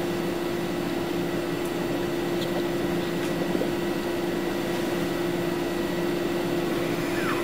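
Steady background hum and hiss with a constant low tone and a faint high whine, unchanging throughout: machine or recording noise with no speech.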